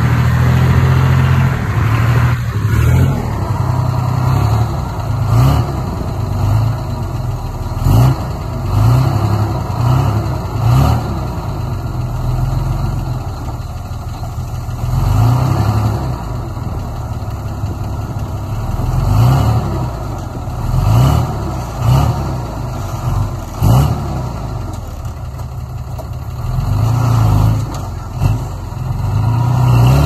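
Mini bulldozer's diesel engine working hard, revving up and easing off again and again as it pushes soil, with a few sharp knocks along the way.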